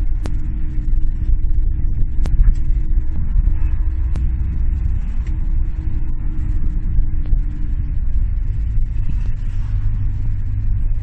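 Steady low rumble of engine and road noise heard from inside a moving vehicle's cabin, with a faint steady hum that fades out about eight seconds in.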